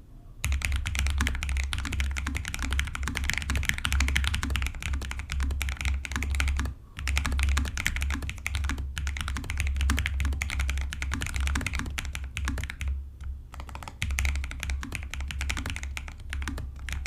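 Steady typing on a Lowfree Flow low-profile mechanical keyboard, a fast run of slightly thocky, clacky keystrokes broken by a few short pauses.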